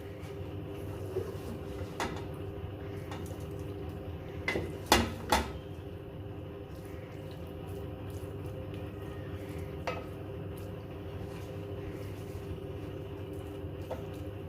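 Kitchen utensil clinking and knocking against a pot as keema is spooned and spread over a rice layer, with two sharp clinks about five seconds in and a few lighter knocks, over a steady hum.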